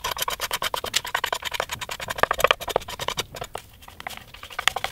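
Flat metal scraper dragged over a mahogany guitar body, lifting paint-stripper-softened finish in quick repeated strokes: a dense run of scratchy clicks, easing off briefly a little after three seconds in.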